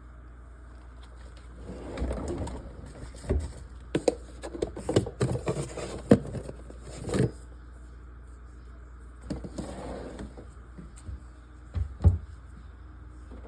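A run of clattering knocks and clicks of hard objects being handled, densest in the middle and loudest about six seconds in. A few softer rattles follow, then two sharp knocks near the end.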